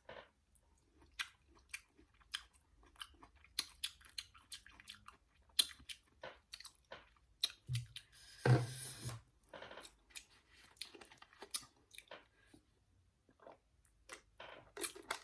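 Mouth chewing and smacking on a Kool-Aid-coated fruit snack: irregular wet clicks, with one louder, longer sound a little past halfway.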